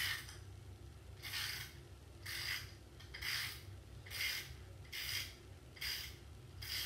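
A rasping scrape repeated in even strokes, about one a second, from something rubbed or scraped by hand.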